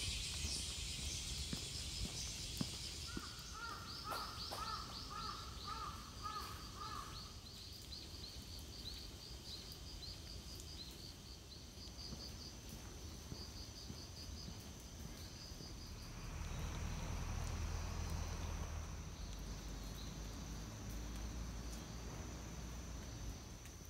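A crow caws about eight times in quick succession a few seconds in, over high rapid chirping and a steady high insect drone. About two thirds of the way through, a low rumble comes up.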